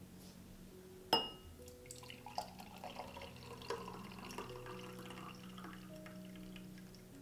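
A glass clinks once, ringing briefly, about a second in, followed by small irregular drips and splashes of water in a glass container.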